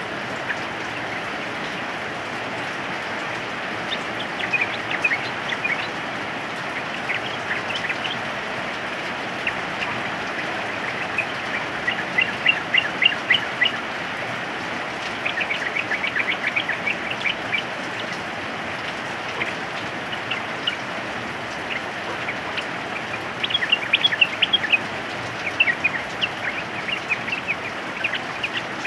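Yellow-vented bulbuls calling in repeated bursts of quick, chattering notes over a steady hiss of rain. The loudest bursts come about twelve seconds in and again near twenty-four seconds.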